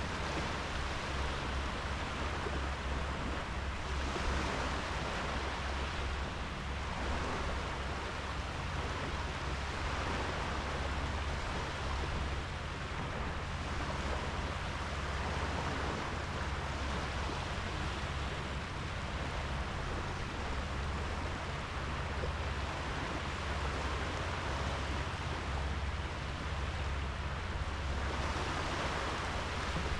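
Sea surf washing onto a sandy beach: a steady wash of small waves that swells gently every few seconds, with a low rumble underneath.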